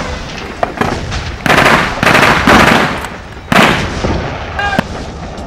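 Blank gunfire in a mock battle: four loud shots in the middle, each followed by a short echo, with fainter cracks between them.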